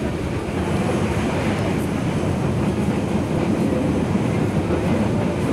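Steady rumble of a moving passenger train heard from inside a business-class coach: wheels on the rails and the running noise of the carriage.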